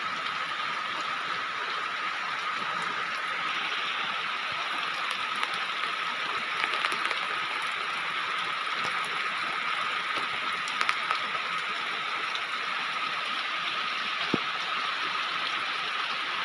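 Steady rain hiss with a thin steady high tone under it and a few light ticks.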